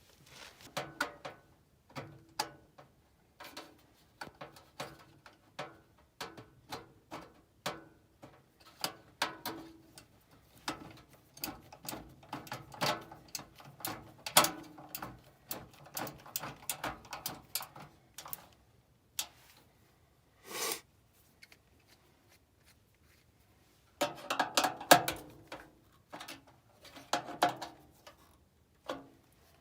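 Hand work on a gas furnace blower assembly: irregular metal clicks, taps and rattles as screws and sheet-metal parts are handled. There is a short quiet spell about two-thirds of the way through, then a louder burst of clattering.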